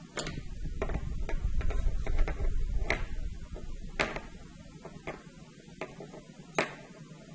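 Irregular small clicks and ticks of hands handling fishing wire, a metal crimp sleeve, a line protector and a flying fish lure on a workbench, the sharpest clicks about halfway and near the end. A low rumble of knocks and handling runs under the first half.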